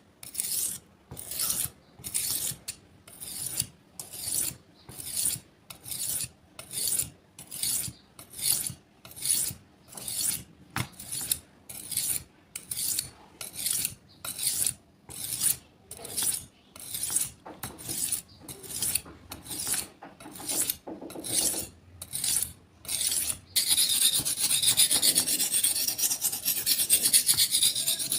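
A blade being sharpened by hand against an abrasive: a rasping scrape on each stroke, repeated about one and a half times a second. Near the end the strokes run together into a faster, louder, continuous back-and-forth scraping.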